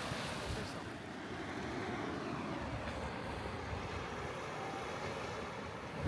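Steady wash of ocean surf, with wind rumbling on the microphone.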